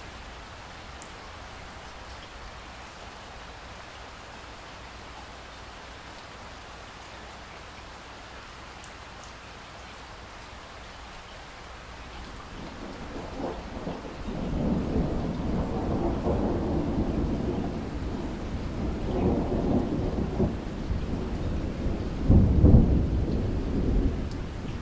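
Steady rain falling, with thunder rumbling in from about halfway through, swelling in waves and loudest near the end.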